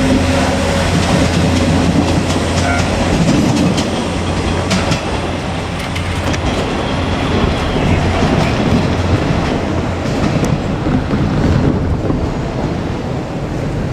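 KiHa 147 diesel railcar train passing over a level crossing, its wheels clicking over the rail joints amid steady running noise. A low engine hum drops away about four seconds in.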